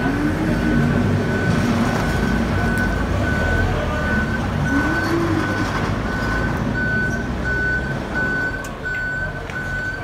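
An electronic warning beeper sounding in short, regular, same-pitched beeps throughout, over a steady low machine rumble that drops away about eight seconds in.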